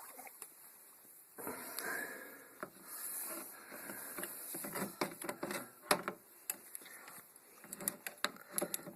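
New bicycle crankset with its chainrings being fitted onto the bottom-bracket spindle by hand: a rustle of handling, then a run of small clicks and taps over the last few seconds.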